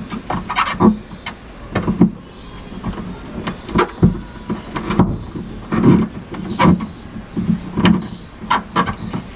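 Wire and plastic connector being pushed and worked through a rubber body grommet slit open with a cutter, making irregular rubbing, scraping and clicking noises several times a second.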